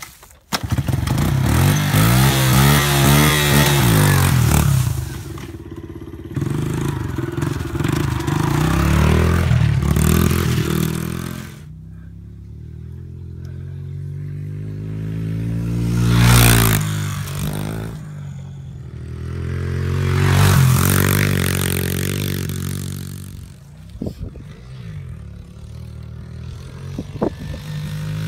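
Honda CRF70 pit bike's small single-cylinder four-stroke engine catching on the kickstart about half a second in, then blipped in quick revs. The bike then rides the track, getting loud as it passes close by twice, with the pitch dropping after each pass, and fading as it moves off.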